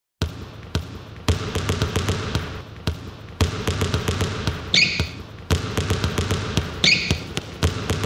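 Basketball dribbling thuds and taps set out as a rhythmic beat, with short high sneaker squeaks about every two seconds: the bouncing-ball percussion that opens the song.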